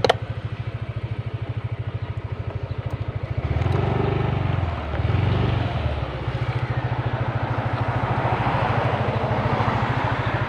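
Motorcycle engine idling with an even low pulse, revving up briefly between about three and a half and six seconds in.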